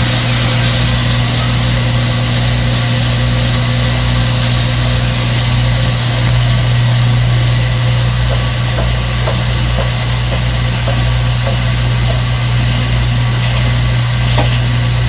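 Front-load washing machine running with a steady, even machine hum and a few faint clicks in the second half.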